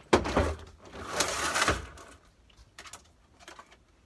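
A hard-shell suitcase being handled and pushed onto a wooden shelf: a knock just after the start, then a scraping rustle lasting under a second, and a few light taps near the end.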